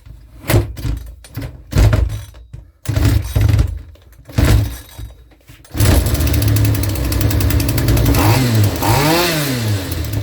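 Makita EM2600 strimmer's 25.7cc two-stroke engine being pull-started: several separate pulls of the recoil starter, then about six seconds in it catches and runs steadily, revved up and back down once near the end. It is running properly again after a carburettor repair and sounds lovely.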